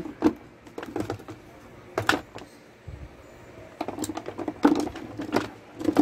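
Irregular small clicks and taps of hands handling wire leads and small parts on a wooden workbench, in uneven clusters with short pauses between.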